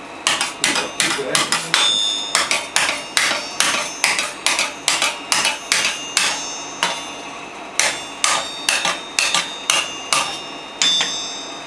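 Hand hammer beating a red-hot steel blade on an anvil: a quick run of blows, about three a second, many with a bright metallic ring. The blows pause for about a second partway through and stop near the end.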